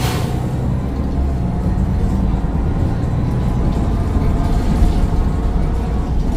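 Onboard sound of a Mercedes-Benz Citaro O530 bus's Daimler OM906 6.4-litre straight-six diesel running, a steady low rumble. A short hiss comes right at the start and fades within about half a second.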